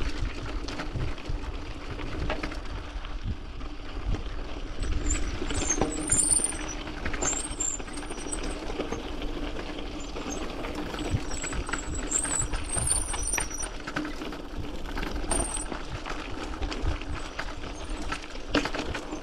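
Mountain bike rolling down a loose gravel dirt track: tyres crunching over stones and the bike rattling and knocking over bumps, with a low wind rumble on the microphone.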